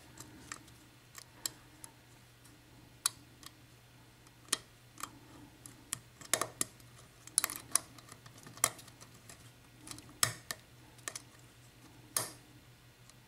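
Lock pick and tension wrench working in a Dorma pin-tumbler mortice cylinder: scattered sharp clicks at irregular intervals as pins are set, and released when tension is let off to drop pins caught by the counter-milling.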